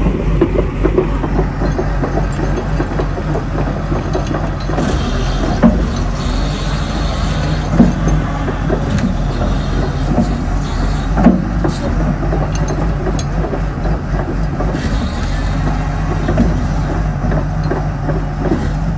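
JCB JS 205 tracked excavator's diesel engine running steadily as the machine works its boom and bucket, with a few sharp knocks in the middle.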